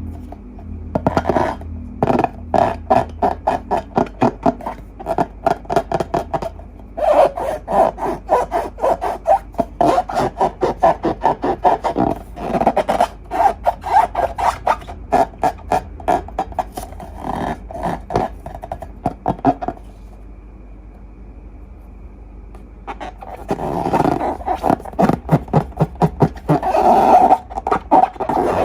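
Slime being squeezed and worked by hand, giving runs of rapid sticky clicks and pops, with a pause of a few seconds about two-thirds through.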